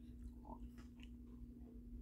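Faint chewing and small wet mouth clicks from someone working a mouthful of cherry pepper, over a steady low hum.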